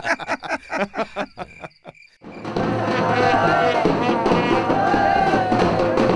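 A man speaking over steady cricket chirping stops after about a second and a half. After a short silence, a brass band starts playing loudly, with crowd noise, and keeps on.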